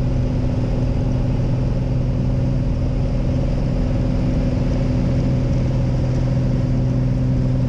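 Light aircraft's piston engine and propeller droning steadily and loudly, heard from inside the small plane's cabin, with no change in pitch.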